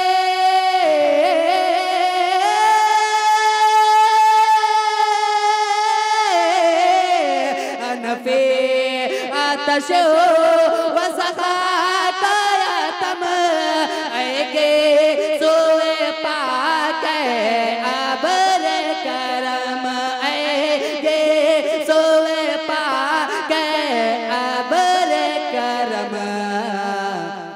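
A man singing a naat solo into a microphone: long held notes for about the first six seconds, then wavering, ornamented phrases without clear words.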